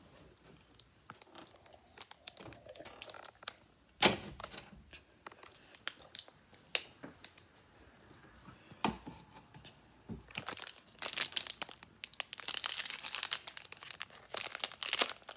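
Scattered light knocks and rustles with one sharp knock about four seconds in, then from about ten seconds in a plastic snack pouch crinkling continuously as it is handled.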